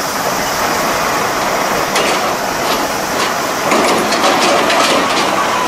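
Heavy diesel trucks passing at close range: a concrete mixer truck goes by, and a Hino tractor unit hauls an empty container chassis trailer. From about two seconds in there is a run of metallic rattles and clanks, thickest around four to five seconds.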